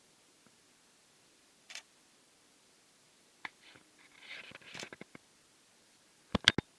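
Camera clicks and handling noise: a single short click about two seconds in, a run of small clicks and rustling in the middle, and a quick group of sharp clicks near the end, the loudest sound.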